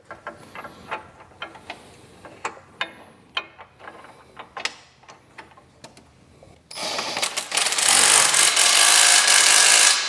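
Light metal clinks of a bolt, flat washer and nut being handled at a tractor loader-mount bracket. About seven seconds in, a loud, rapid mechanical clatter starts and runs for about three seconds.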